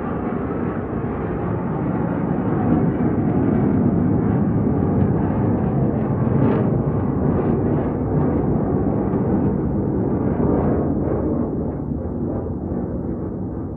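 Military aircraft flying over: a deep, noisy rumble that swells over the first few seconds, crackles in the middle and eases off near the end.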